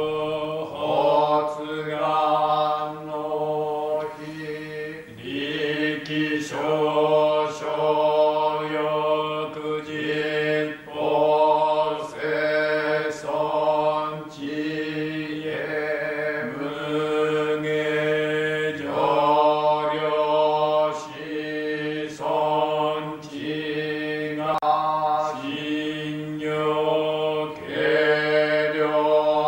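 Jōdo Shinshū Buddhist sutra chanting by priests: long, drawn-out sung syllables whose pitch bends and shifts every second or two, over a steady held low tone.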